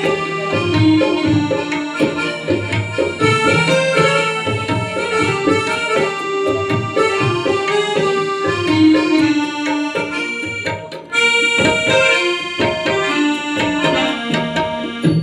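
Live Indian ensemble music: harmonium and keyboard carrying a melody over tabla, briefly dropping away about eleven seconds in.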